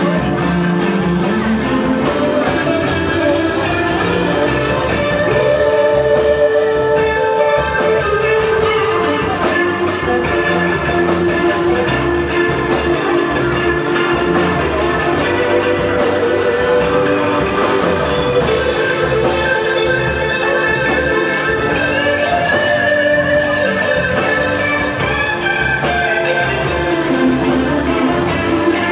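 Live rock band playing a slow instrumental passage: electric guitar lines held and bending over drums, bass and keyboards.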